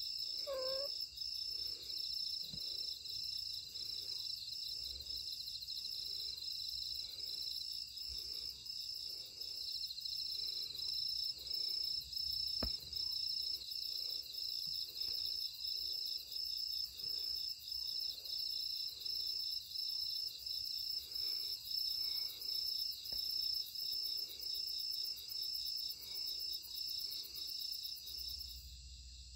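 An injured young cat gives one short cry of pain about a second in as its wounded thigh is touched. Insects chirp steadily in a quick, even pulse throughout.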